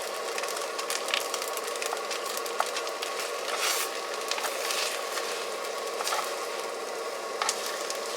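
Food sizzling in a metal mess tin over a stove, a steady hiss broken by scattered clicks and scrapes of a spoon stirring against the tin.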